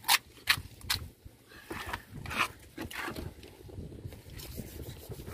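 Knife strokes scraping along a tuna's backbone as a fillet is cut away: a quick run of short scrapes about two a second, then rougher, uneven scrapes.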